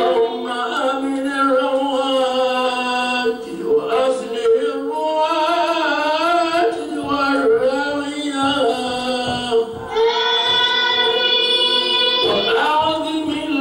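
A man's voice chanting an Islamic devotional mawlid hymn into a microphone, in long held notes with wavering ornaments and a few short breaks for breath.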